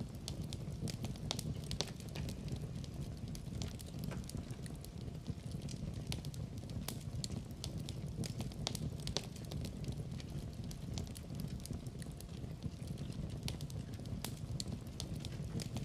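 Wood fire burning steadily in a fireplace: a low, even rumble of flames with frequent sharp, irregular crackles and pops from the burning logs.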